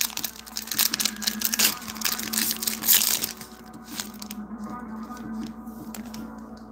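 Foil wrapper of a Mosaic football card pack crinkling and tearing as it is ripped open by hand, stopping about three seconds in.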